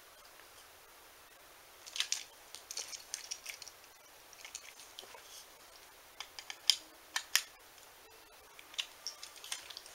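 Faint, irregular clicks and small scrapes of a screwdriver and plastic parts as a TrackMaster toy engine's shell is screwed back together. The sharpest clicks come about two seconds in and again around seven seconds.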